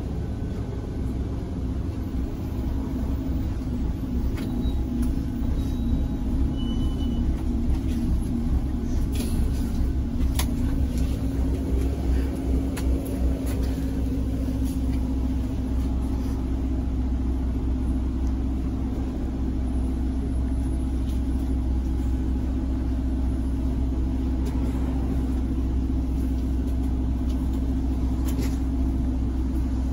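Mercedes-Benz O405 city bus heard from inside the cabin while driving: a steady low engine and road drone, with a few brief rattling clicks from the interior.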